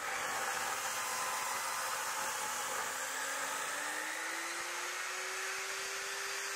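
Steady rushing, blower-like noise that starts suddenly, with a faint hum that slowly rises in pitch.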